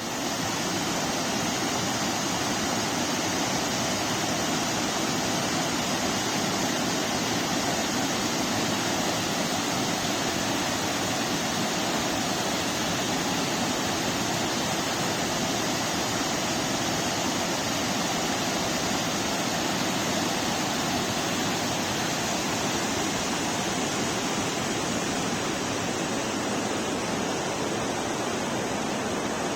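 Water pouring over the Cottonwood River dam, a steady even rush of falling water.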